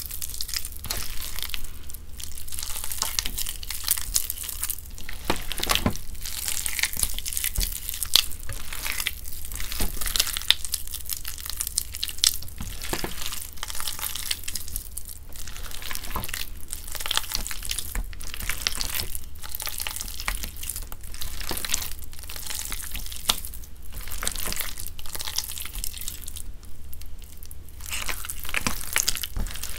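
Hands squeezing and kneading wet gym chalk mixed with charcoal powder into a paste: a continuous wet squish with many small crackling clicks and pops.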